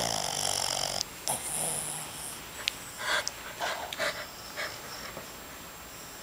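Sleeping Boston Terrier snoring: two loud snores in the first two seconds, then a few shorter, softer ones that die away about halfway through.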